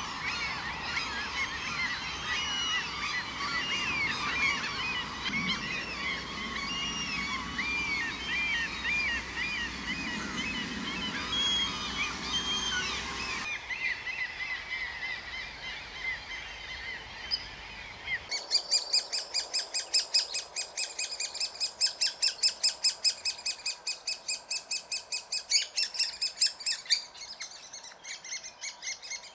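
Waterbirds calling. First a dense chorus of many overlapping calls, which stops suddenly about halfway through. After a few seconds of scattered calls, a fast run of sharp notes repeated evenly, about three or four a second, takes over as the loudest sound.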